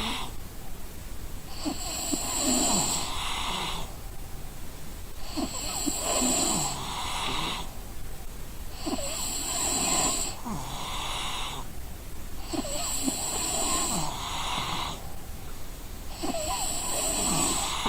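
A person snoring in sleep, with about five snores, one roughly every three and a half seconds, each drawn out in two parts.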